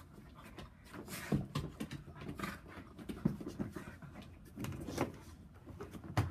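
A big dog play-wrestling: panting and scuffling, with scattered knocks and bumps.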